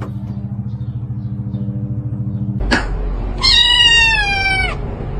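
A cat meows once, a single long call that slowly falls in pitch, about three and a half seconds in. Before it there is a steady low hum with a fast pulse, and a click just before the meow.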